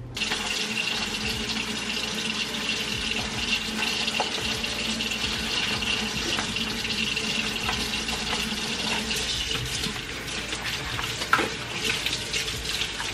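Kitchen tap running steadily into a stainless steel sink as a pot is scrubbed by hand, with a few knocks of dishware, the loudest about eleven seconds in.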